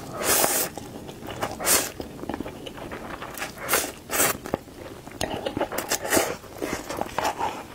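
Close-miked slurping of instant cup noodles, a string of short noisy slurps with chewing and small mouth clicks between.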